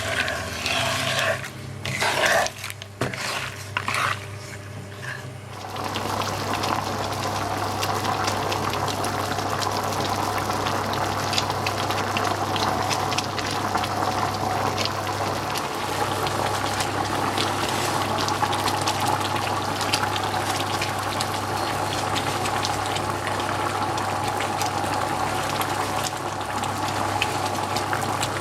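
Sugar water and almonds boiling in a pan: a steady bubbling hiss with fine crackles over a low hum. Irregular knocks and handling clatter come in the first few seconds.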